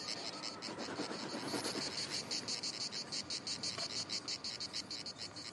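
Insects chirping in a steady, even rhythm of about six high-pitched pulses a second.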